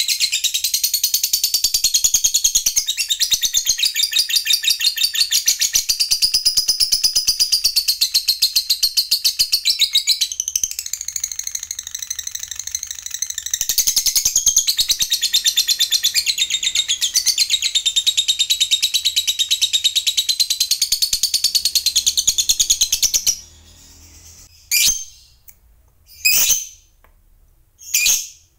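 Fischer's lovebird giving a long, unbroken 'ngekek panjang' chatter, a fast, high-pitched rattling song, the long chatter prized in singing lovebirds. It cuts off suddenly near the end and is followed by three short single calls.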